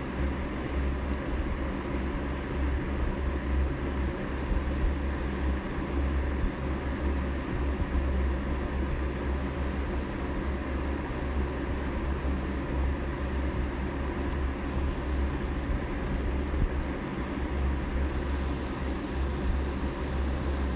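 A steady low hum with an even hiss over it, like a fan or air conditioner running.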